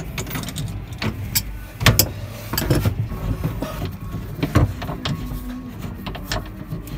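Irregular metallic clicks, knocks and scrapes as the old steering cable and its nut are handled at the threaded hull fitting, over a low steady hum. The loudest knocks come about two seconds in and again past four and a half seconds.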